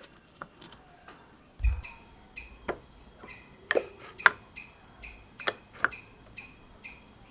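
A bird calling in a steady series of short, high chirps about twice a second, starting a couple of seconds in, over sharp clicks and taps of glass jars with metal lids being handled.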